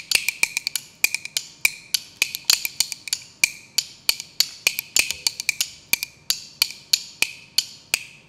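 Bamboo clapper boards (kuaiban) played solo: a fast, steady rhythm of sharp wooden clacks, about five a second.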